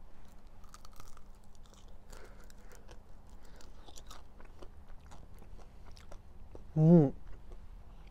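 A person chewing grilled fish off a skewer close to the microphone: soft, scattered crunches and mouth clicks. About seven seconds in, a short, satisfied "mm" breaks in.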